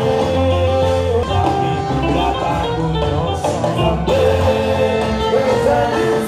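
Music with guitar, a bass line changing notes about once a second, and singing voices.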